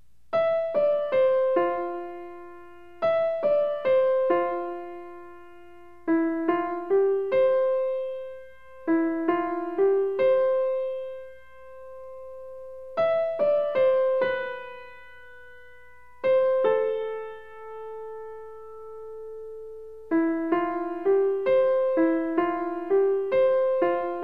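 Gentle piano background music: short phrases of struck notes that each ring and fade. A few notes are held longer in the middle, and the notes come quicker again near the end.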